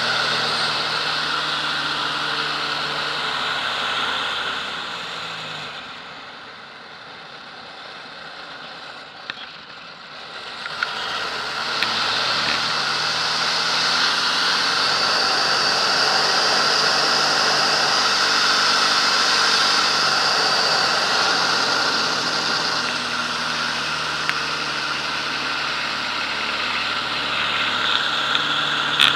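Aerobatic biplane's piston engine and propeller running, heard from the cockpit over rushing air. About five seconds in the engine is throttled back and goes much quieter, then powers up again about eleven seconds in and runs steadily at high power.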